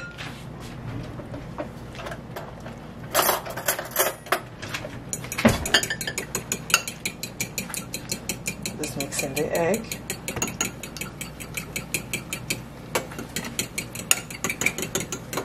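Eggs being beaten by hand in a glass bowl, a utensil clicking against the glass in a fast, even rhythm of about five strokes a second. A few louder clatters come before the beating settles into its rhythm.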